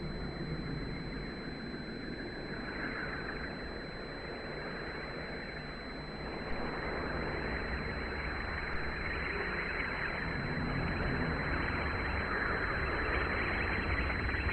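Aerobatic aircraft engine noise, a steady rushing drone that swells and fades as the aircraft pass and grows louder in the second half.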